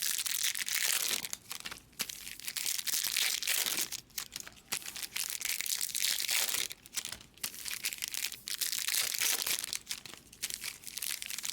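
Trading card pack wrappers crinkling as packs are handled and opened, in stretches of a second or two with short pauses between.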